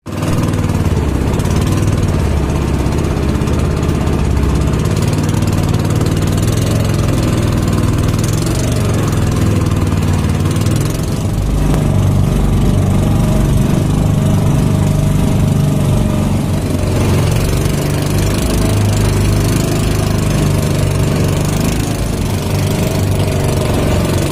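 Inboard engine of a wooden outrigger motorboat running steadily under way.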